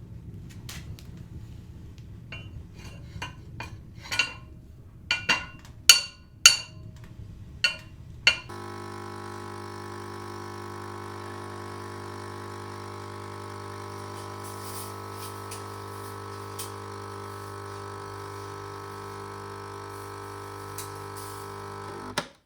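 A run of sharp metallic clinks and knocks, the loudest around the middle. Then, about eight seconds in, a steady drone of many held tones starts abruptly and cuts off suddenly near the end.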